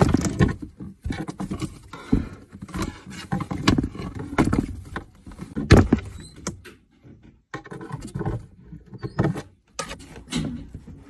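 Irregular tapping and scratching on a cardboard box as a cat paws at the edge of a hole and at a stick toy poked through it, with the loudest knock about six seconds in.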